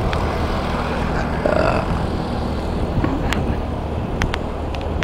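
Steady running noise of a vehicle on the road: a low engine hum under a hiss of wind and tyres, with a few sharp clicks in the second half.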